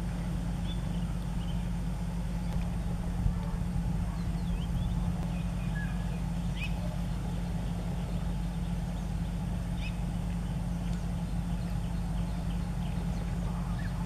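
A steady low engine hum that holds unchanged throughout, with faint short bird chirps now and then above it.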